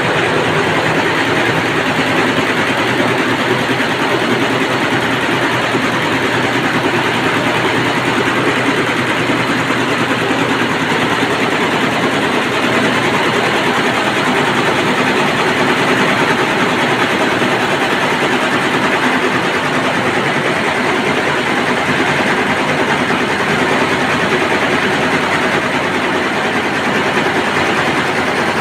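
12-head computerized embroidery machine running steadily, its needles stitching at speed.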